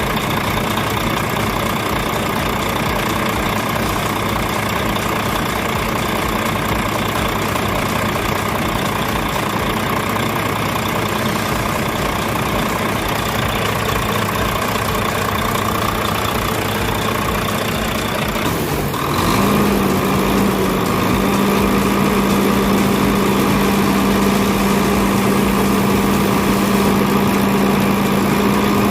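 Volvo truck diesel engine idling steadily, just brought to life after a hard-starting problem and a bleed of its fuel system. About 19 s in the sound shifts: a strong steady low hum comes in and the engine gets a little louder.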